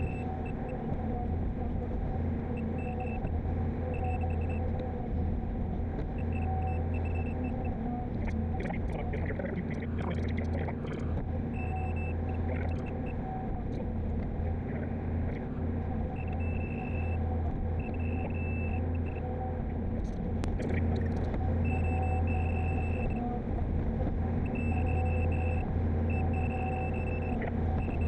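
Volvo excavator's diesel engine and hydraulics working steadily while the bucket digs a footing, heard from the cab. Short runs of high beeps from the Leica iCON grade control system come and go, and scraping and crackling of the bucket in the dirt rises about ten and twenty seconds in.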